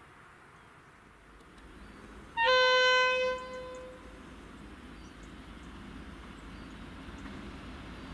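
Irish Rail 071 Class diesel locomotive sounding its horn once, a single steady tone about a second long, about two and a half seconds in. Afterwards the low rumble of the approaching locomotive slowly grows louder.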